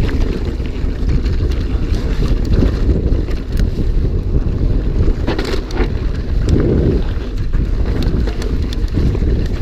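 Heavy wind buffeting on the microphone of a camera riding a mountain bike downhill at speed, with scattered clicks and rattles from the bike on a rough trail.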